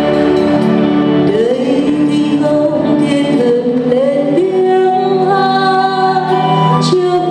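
Live song with band accompaniment: a singer holding long notes that slide between pitches over steady backing.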